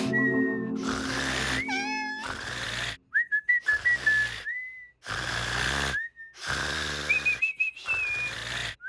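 Cartoon snoring: long, breathy in-breaths alternate with high, warbling whistles on the out-breath, repeated several times with short pauses between.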